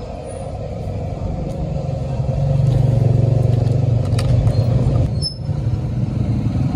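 Gas burner under a frying wok, giving a steady low rumble that grows louder about two and a half seconds in, with a brief dip a little after five seconds.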